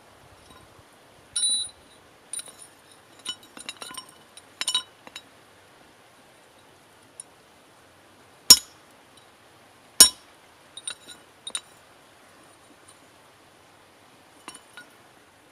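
Blacksmith's hammer and iron tools clinking against the anvil: a brief ringing ping about a second and a half in, scattered light metallic clinks, and two sharp hammer strikes about eight and ten seconds in.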